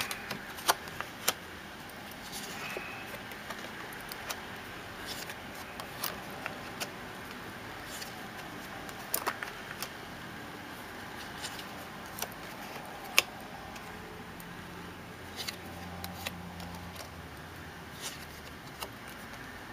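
Fortune-telling playing cards being dealt and laid down one by one onto a laptop keyboard: scattered light taps and card-handling clicks at irregular intervals over a low hiss.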